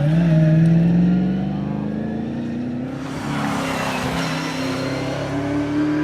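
Holden Torana's engine accelerating hard. The note climbs steadily, drops briefly about halfway through, like a gear change, and then climbs again. It is loudest near the start.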